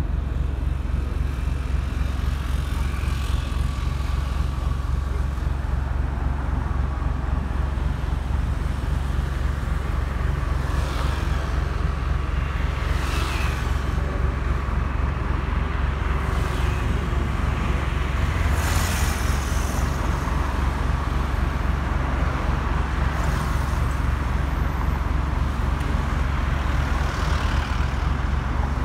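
Jet airliner, an Airbus A320 with CFM56 engines, giving a steady, distant low rumble as it flies over, mixed with street traffic. Several vehicles pass briefly through the middle and later part.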